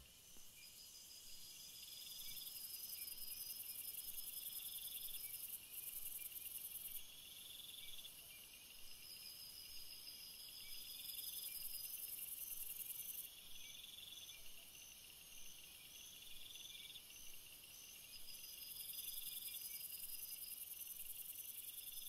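Faint chorus of chirping insects: several high-pitched trills at different pitches pulse on and off over a steady high hiss.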